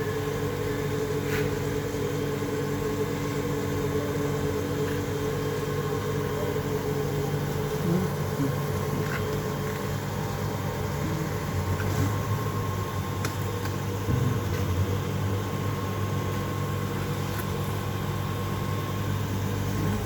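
Steady hum of the electric pump motor on a radiator-flushing machine, running while a car's heater radiator is flushed. A few faint clicks sound over it.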